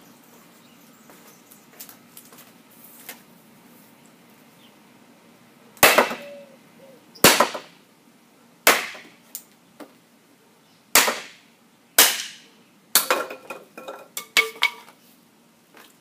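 Gladius chopping through a 1.5 by 5/8 inch wooden strip: five sharp cracks, one every second or two, starting about six seconds in, then a quick flurry of lighter knocks and clatters.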